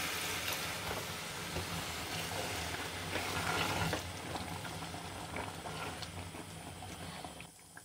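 About a glass of water poured into a hot pot of chicken and chickpea curry, a steady watery rush. From about four seconds in it is quieter as a silicone spatula stirs the pot, with a few small clicks, and it fades out near the end.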